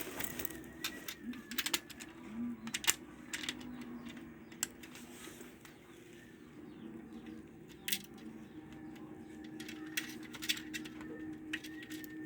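Irregular sharp clicks and light metallic clinks of small metal parts and hand tools being handled, the loudest knock about three seconds in, over a faint steady hum.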